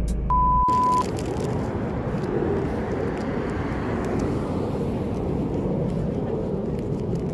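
A 1 kHz test-tone beep lasting under a second, laid in with a TV colour-bar transition. It cuts to steady outdoor noise of distant traffic and wind, with faint clicks of walking.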